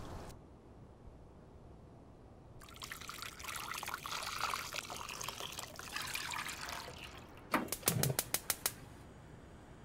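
Soy milk poured into a shallow rectangular pan, a splashing pour of about four seconds starting about two and a half seconds in. Near the end comes a quick run of about half a dozen sharp clicks.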